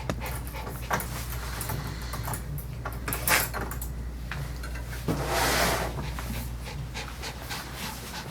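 Dog panting, with a steady low hum underneath and a louder noisy rush lasting about a second, about five seconds in.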